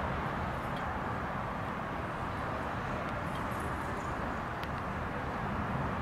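Steady outdoor night ambience with a continuous low rumble and an even hiss, and no distinct thunderclap.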